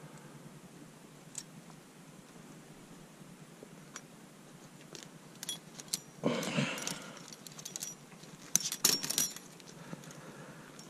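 Metallic clicks and jingling of a steel sable trap being handled, in two short clusters, the later one near the end the busiest, with a brief rustle in between.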